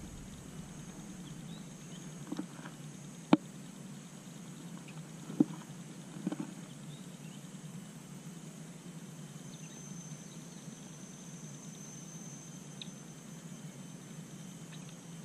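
Quiet forest-lakeside ambience with a faint, steady high insect drone. A few sharp, isolated clicks come about three and five seconds in.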